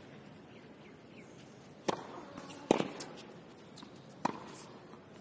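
Tennis ball struck by racket strings and bouncing on a hard court during a point: a few sharp, separate pops over a hushed stadium, the loudest about halfway through.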